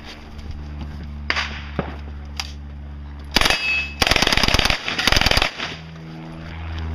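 Uzi submachine gun firing full-auto: a short burst about three and a half seconds in, then a longer rapid burst of about a second and a half. A few single sharp cracks come before, over a steady low hum.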